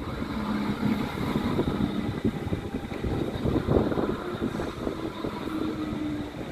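Hamburg S-Bahn electric multiple-unit train passing close by: a continuous rumble of wheels on the rails with a faint steady electric whine and a few short clacks.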